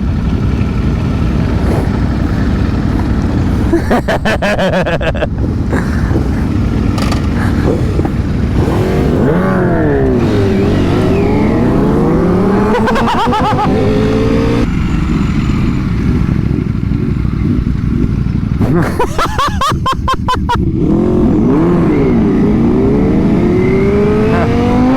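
Motorcycle engine under way with heavy wind rush on the microphone. The engine pitch twice falls and then climbs again, around ten and twenty seconds in, as the bike slows and accelerates.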